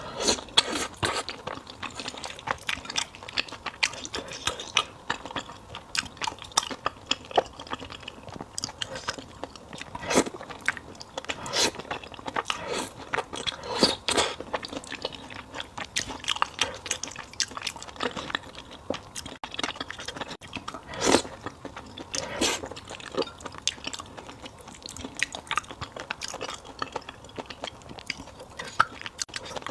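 A person chewing and biting fried beef noodle soup, with many irregular crisp crunches and mouth clicks.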